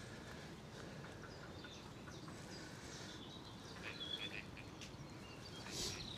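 Small birds chirping in short high notes, mostly in the second half, over a steady low background hiss.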